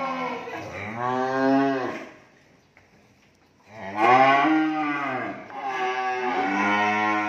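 Cattle mooing: several long, loud moos, each rising and then falling in pitch, with a pause between the first and the last two.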